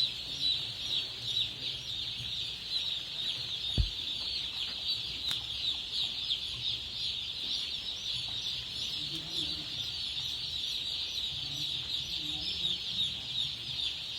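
A large flock of chickens calling all at once: a dense, continuous chorus of high, short cheeps. A single low thump sounds just under four seconds in.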